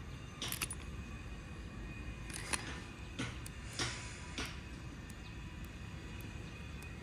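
Scattered short clicks and scrapes over a steady low hum, a few of them louder, about half a second, two and a half, three and four seconds in.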